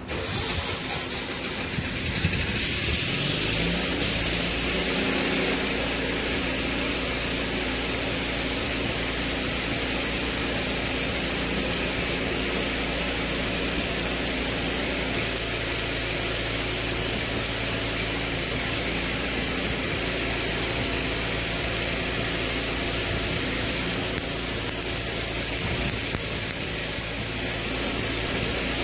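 Engine-driven welding machine starting up: the engine catches and revs up over the first two or three seconds, then settles into steady running.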